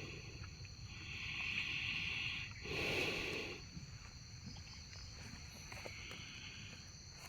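Cow snoring: slow, rasping breaths, a long one followed by a shorter, louder one about three seconds in, and a fainter breath near the end.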